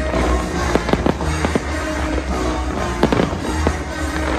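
Aerial fireworks going off in separate sharp bangs, a cluster about a second in and another about three seconds in, over loud show music and a steady low rumble.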